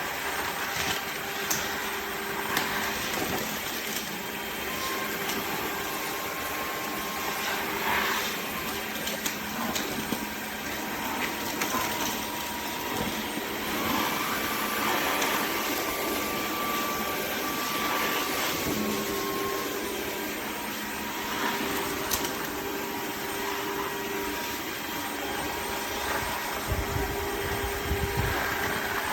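Dreame H12 Pro cordless wet-dry vacuum and mop running in auto mode: a steady motor whir and hiss with a few faint whining tones and occasional light knocks as it is worked over the floor.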